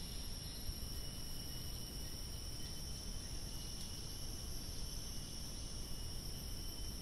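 Steady, high-pitched drone of a tropical forest insect chorus, several layered pitches held without a break, over a low rumbling noise.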